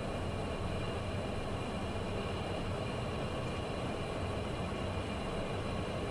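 Steady cockpit noise of a Cessna Citation twin-turbofan jet on short final approach: engine and airflow noise with a faint steady hum, unchanging throughout.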